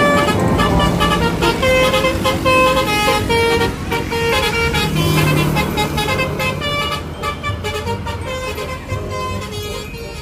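A bus's multi-tone "telolet" air horn plays a melody of short notes, changing pitch every fraction of a second, over the low rumble of the passing vehicle.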